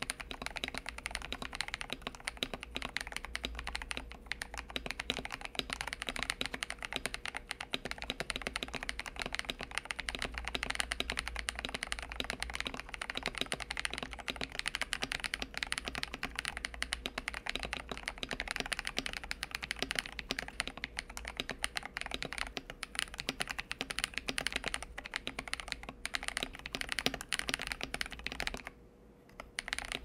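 Fast, steady typing on a KBD67 Lite mechanical keyboard with lubed Glorious Panda tactile switches, C3 stabilizers and stock case foam, under thick PBT keycaps. The keystrokes come densely throughout and stop for about a second near the end.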